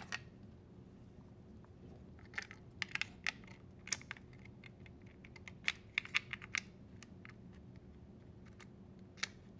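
Small plastic clicks and rattles of wire-harness connectors being handled and pushed onto a dishwasher's control board: a quick run of clicks a couple of seconds in, then one more near the end.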